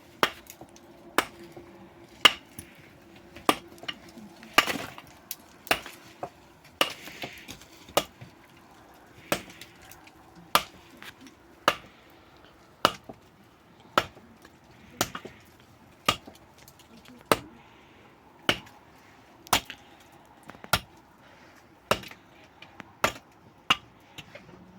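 A hand tool striking a hard surface again and again, in sharp, evenly paced blows about one a second, some twenty in all.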